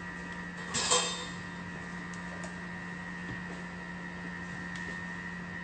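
A single short clink of a kitchen utensil against a hard surface about a second in, with a brief ring, over a steady background hum.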